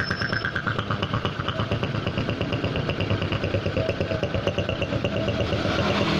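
Honda Supra X 125 single-cylinder four-stroke engine idling with a steady, fast pulse. The mechanic blames its rough 'snoring' running on a leaking engine hose split at its clamp.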